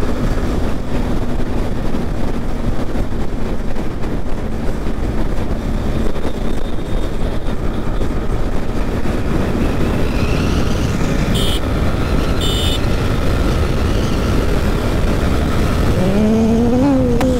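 Riding a motorcycle in traffic: steady rush of wind on the microphone with the engine running underneath. Two short high blips come about two-thirds of the way in, and near the end a tone rises and falls in pitch.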